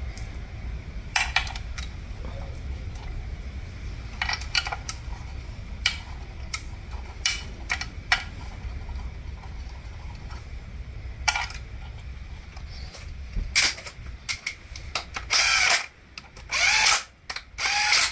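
Scattered clicks and light metal knocks as a CVT transmission filter and its bolts are handled and set onto the valve body. Near the end a cordless drill/driver runs in three short bursts, driving in the filter bolts.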